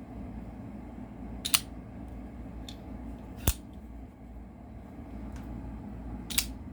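Sixleaf SL08 folding pocket knife being flicked open and shut: three sharp clicks of the blade snapping into place, a couple of seconds apart, with a couple of fainter clicks between.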